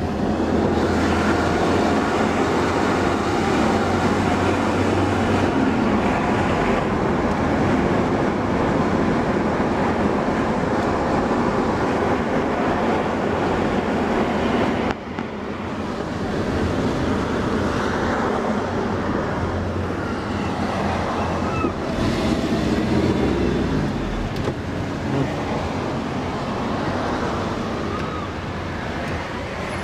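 Wind rushing over the phone's microphone at an open car window, over the road noise of the moving car. It is a loud, steady rush with a low rumble under it, and it dips sharply once about halfway through.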